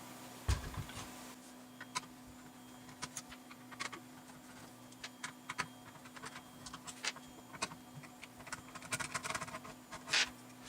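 Scattered small clicks, taps and scrapes of hands and tools working on the stock 80 mm cooling fan inside a bench power supply's metal case, as the fan is taken out; the clicks come thicker near the end. A steady low hum runs underneath.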